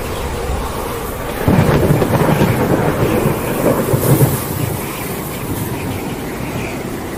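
Thunderstorm with rain: a steady rush of storm noise, with a loud low rumble that starts suddenly about a second and a half in and lasts about three seconds.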